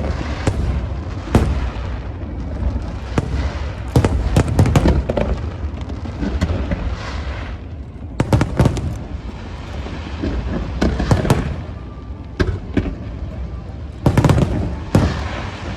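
Aerial fireworks shells bursting, with sharp bangs and crackles coming in clusters every few seconds over a continuous low rumble of distant reports.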